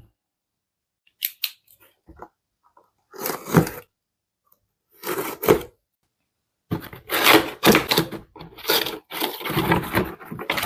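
Cardboard box and packaging being opened and handled: a few scattered clicks, then short bursts of rustling and tearing, turning into continuous rustling about two-thirds of the way in.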